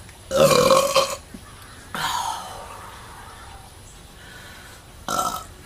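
A woman belching up gas from a fizzy drink: one loud, deep gut burp about a second long, then a shorter sound falling in pitch, and a brief one near the end.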